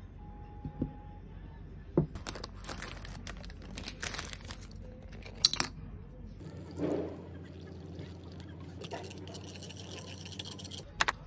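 Dishes and packaging being handled on a table: a couple of sharp clicks, a few seconds of crinkling plastic wrap, a short pour of water into a soup bowl about seven seconds in, and a sharp clink of chopsticks or tableware near the end.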